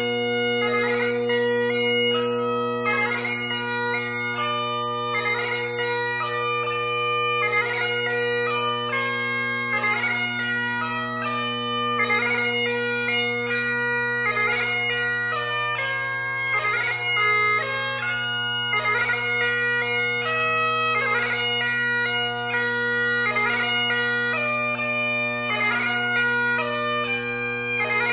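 Great Highland bagpipe played solo: a chanter melody moving from note to note over the steady, unbroken hum of the drones.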